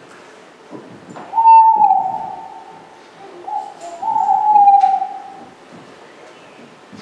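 Owl hooting: one long hoot about a second in, a short hoot, then a long hoot that sinks slightly in pitch. Faint knocks of footsteps on a stage floor lie underneath.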